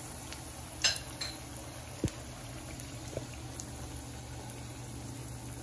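Oil sizzling steadily in a wok as battered banana slices (maruya) fry, with a few sharp clicks, the loudest about a second in and at two seconds.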